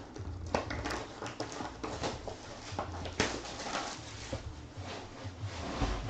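A sports-card box and its packaging being opened and handled: irregular scratching, rustling and small clicks of cardboard, wrapper and cards.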